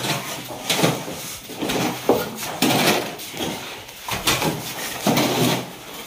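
Hoes scraping and chopping through a heap of damp sand-and-cement mortar on a concrete floor, in irregular strokes while the plaster mix is turned by hand.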